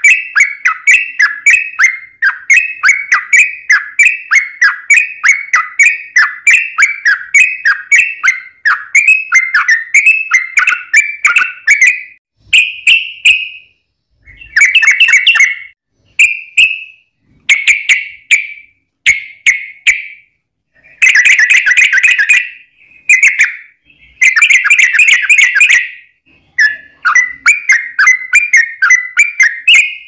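Yellow-vented bulbul (trucukan) singing: a long run of quick repeated chirping notes, about two a second, breaks into shorter, busier chattering phrases with gaps between them, and the quick repeated notes come back near the end.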